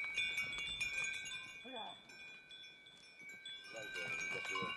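Bells on a herd of walking cattle, clanking and ringing unevenly as the animals move, with a couple of short low calls from the cattle partway through and near the end.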